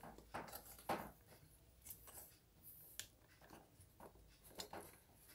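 Near silence, broken by a few faint, brief clicks and rustles of handling.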